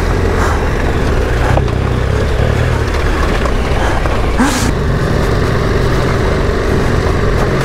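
KTM 1290 Super Adventure R's V-twin engine running steadily while riding, over an even rushing noise, with a brief sharper sound about four and a half seconds in.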